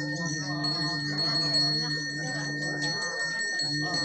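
A Balinese priest's brass hand bell (genta) rung without a break, ringing steadily, with chanting voices underneath.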